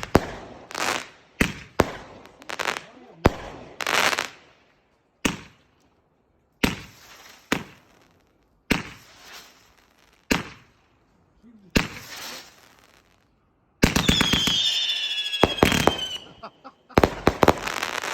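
Fireworks going off: a run of separate sharp bangs, each trailing off in crackle. About fourteen seconds in, a dense stretch of rapid bangs with a high falling whistle over it, then a last burst of crackling near the end.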